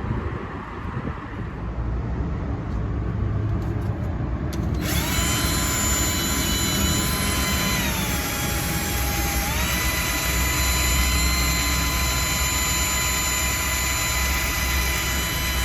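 Power tool spinning a wire brush, scrubbing surface rust off metal: it starts with a steady high whine about five seconds in, sags in pitch for a second or so as it bears down, then picks back up. Before it starts there are a few seconds of lower rough noise.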